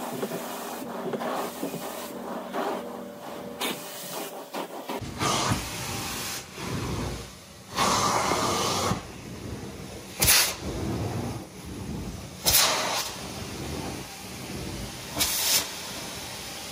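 Carpet-cleaning equipment hissing steadily, with several louder spurts of spray, one of them about a second long.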